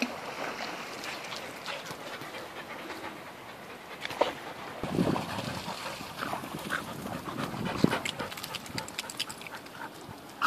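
Border collies panting.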